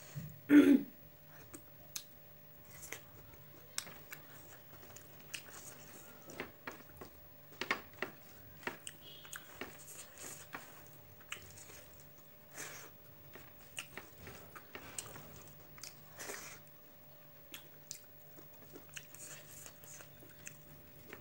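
A person chewing a mouthful of rice and beef curry, with short wet smacks and clicks scattered every second or so and one louder mouth sound just after the start.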